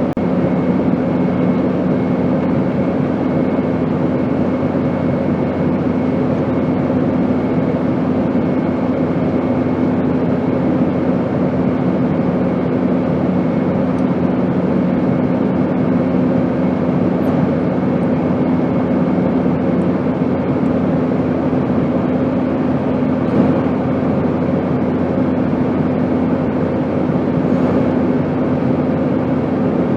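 Airplane noise: a steady, unchanging drone, an even rush of noise with a low hum running through it.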